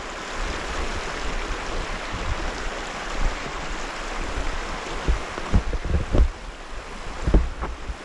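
Steady rush of flowing creek water. From about five seconds in, irregular low thumps of wind buffeting the microphone break through.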